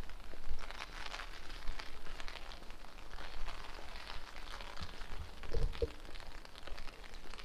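Steady rain pattering on street surfaces, with gusts of wind buffeting the microphone in low rumbles.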